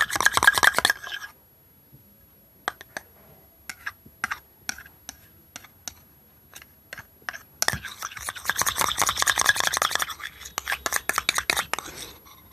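Metal spoon stirring and scraping thick chilled slime in a metal bowl. Rapid scraping strokes stop about a second in, then come a few scattered clinks over several seconds. Brisk stirring resumes about two thirds of the way through.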